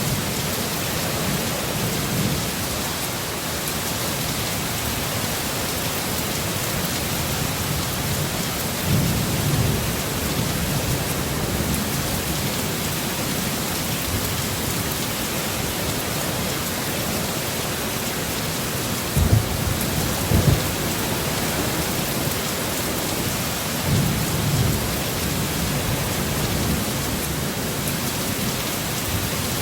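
Heavy, steady rain with low rolls of thunder swelling up several times, two of them short and sharp in quick succession past the middle.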